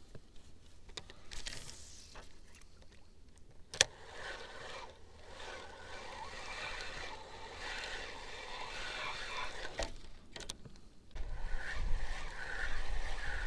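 Spinning reel being cranked to retrieve a wobbler, with a sharp click about four seconds in and a few smaller clicks later. From about eleven seconds, wind buffets the microphone.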